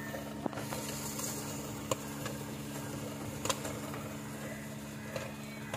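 Street popcorn machine running with a steady hum, its cast-iron pot full of popped corn, with a few sharp pops of kernels bursting, spaced a second or more apart.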